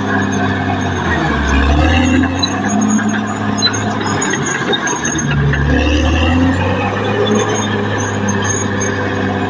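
Caterpillar D6R XL bulldozer's diesel engine running under load, its note shifting twice as the load changes, with faint high squeaks over it.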